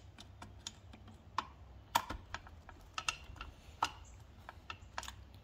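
Light, irregular clicks and taps as a screwdriver turns the adjusting screw of an emergency-brake warning-light switch on a steel parking-brake lever assembly, a few clicks a second, the loudest about two seconds in.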